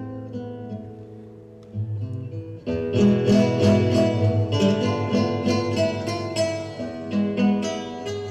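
Background music of plucked strings, quiet at first and then fuller and louder from about three seconds in, with quick repeated notes.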